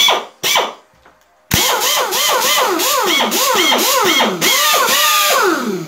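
Pneumatic drill and impact wrench running free on compressed air: two short blips, then about a second and a half in a long run with the trigger pulsed, the motor whine repeatedly dropping and climbing again. The heavy air draw pulls the tank pressure down from 8 to 6 bar.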